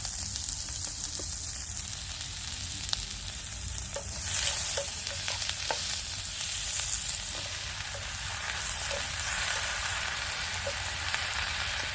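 Potatoes frying in hot oil in a pan on a small camping stove, a steady sizzle that grows louder about four seconds in, with a few light clicks as they are stirred.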